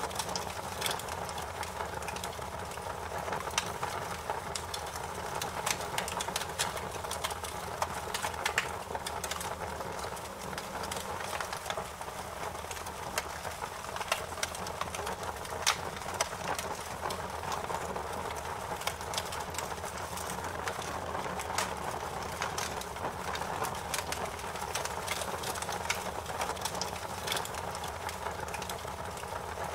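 Fire crackling in a fireplace: many small, sharp pops and snaps at irregular intervals over a steady hiss.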